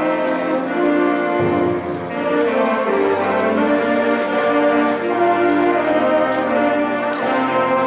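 Eighth-grade concert band of woodwinds, brass and percussion playing a piece in sustained chords, with low bass notes joining about a second and a half in.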